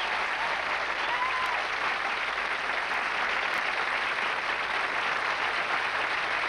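Studio audience applauding steadily at the end of a song.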